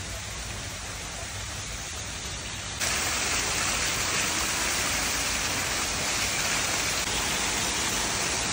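Garden waterfall pouring over rocks and splashing into its pool as a steady rushing noise, suddenly louder and closer about three seconds in.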